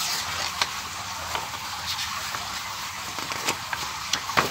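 Paper pages of a printed manual rustling as they are leafed through by hand, with a few sharp crackles of paper.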